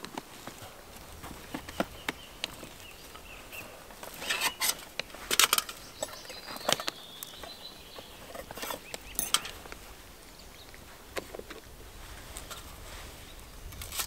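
Camping gear being handled by hand: rustling and scattered sharp clicks and knocks as a leather case is opened and a folding metal camp stove is taken out. A bird chirps faintly now and then.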